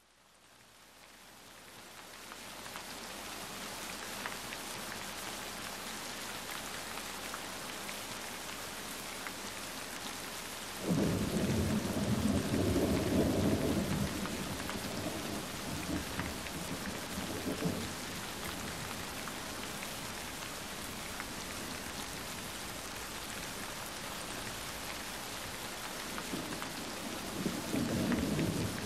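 Steady rain falling, fading in over the first few seconds. A long roll of thunder rumbles about a third of the way in, and a shorter one comes near the end. A few faint crackles come from a wood fire.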